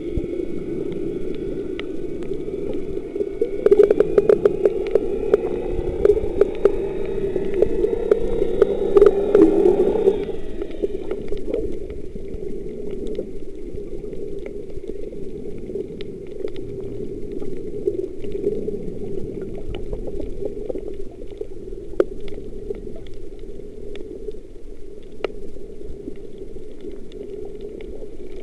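Underwater sound while snorkelling: a steady muffled hum with bubbling and scattered clicks. For the first ten seconds there are also steady higher whining tones and a rapid run of clicks, which stop about ten seconds in.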